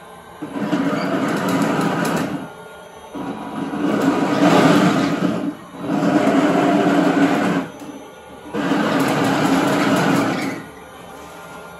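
Electric drive motors and gearboxes of a 3D-printed 1/9-scale RC M1A2 Abrams tank whining as its plastic tracks rattle over a wooden floor. The sound comes in four bursts of about two seconds each, with short pauses between them as the tank drives and turns.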